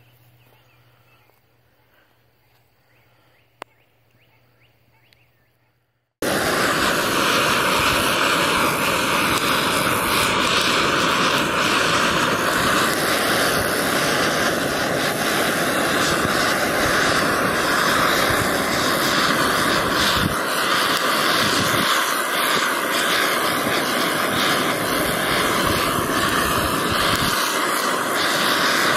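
Handheld gas torch blowing its flame into a stack of sticks to light a campfire: a loud, steady roar that starts abruptly about six seconds in. Before it, near silence with a single click.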